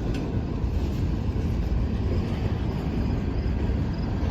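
Norfolk Southern manifest freight train rolling past on the siding: a steady low rumble.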